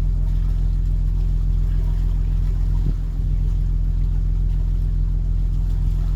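Boat engine running with a steady low hum, dipping briefly about three seconds in.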